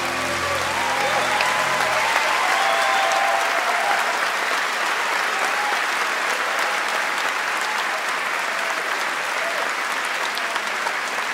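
Large audience applauding, with a few shouts and whoops among the clapping; the last sustained notes of the music fade out about two seconds in.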